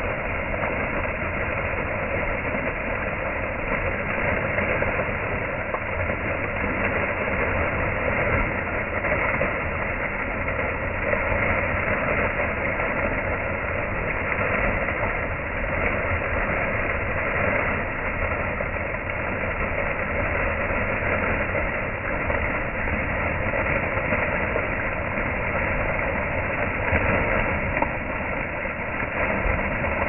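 Plaza fountain's single vertical jet of water falling back and splashing steadily into its basin.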